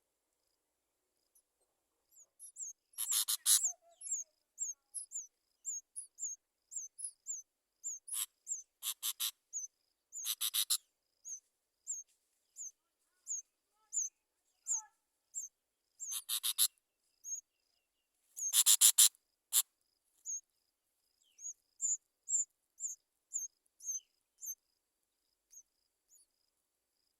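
Small birds calling: thin high chirps repeated about twice a second, broken five times by louder harsh bursts of rapid notes.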